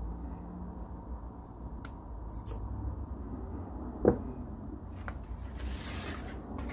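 Small tabletop handling sounds while trimming a satin gift ribbon: a few faint clicks, one sharp knock about four seconds in as the metal scissors are set down on the table, then a brief rustle near the end.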